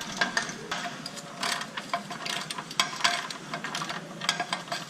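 Hand ratchet wrench clicking in short spells of rapid clicks as bolts are worked under the car.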